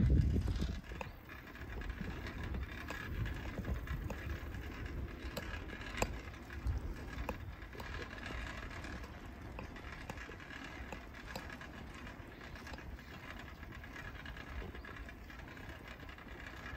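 Riding noise of a bicycle: a steady low rumble with scattered small clicks and rattles.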